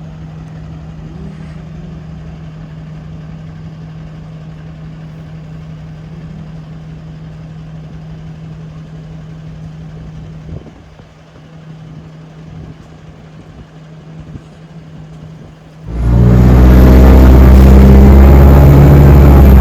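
On-board sound of an ADL Enviro 200 single-deck bus: a steady low engine hum with a held tone while it stands or creeps. Near the end it suddenly turns very loud as the bus pulls away under power, with a high whine over the drivetrain noise.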